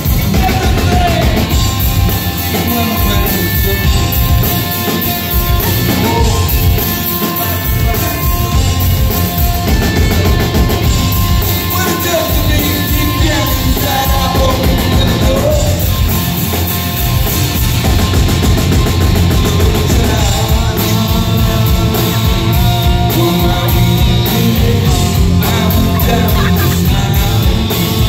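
Live rock band playing loudly: distorted electric guitars, bass and a drum kit keeping a steady beat, with a lead vocal sung over parts of it.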